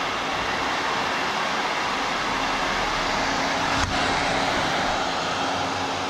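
Two hair dryers running together, a steady blowing rush with a faint motor hum. One brief knock about four seconds in.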